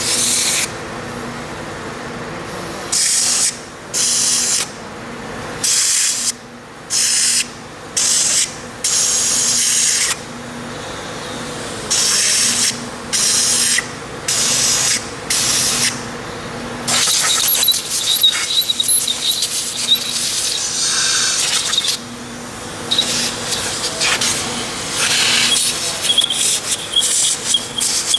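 Compressed-air blow gun blowing out the bolt holes and oil passages of a bare Yamaha 1.8-litre engine block. It fires in about a dozen short hissing bursts, then in longer, ragged blasts with a thin whistle through the second half.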